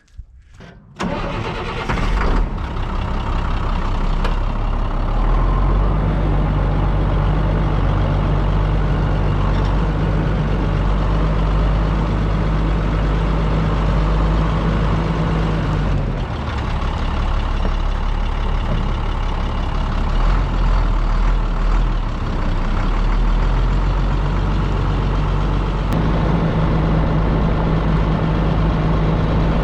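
Diesel engine of a farm machine cranks and starts about a second in, then runs steadily, its note shifting slightly a few times.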